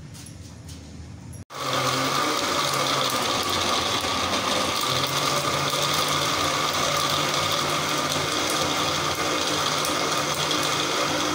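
Electric countertop blender running at a steady speed, pureeing watermelon chunks into juice, with a constant motor whine. It starts abruptly about a second and a half in.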